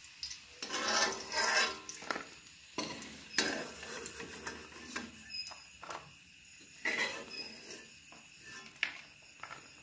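Steel spoon scraping and knocking against a steel kadai as fried chicken pakoras are scooped out of the oil, in a series of irregular strokes a second or more apart.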